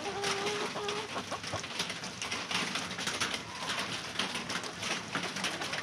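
Rain falling on a corrugated chicken-run roof, a dense steady patter of drops. Chickens under the roof give soft low calls, one held note in the first second.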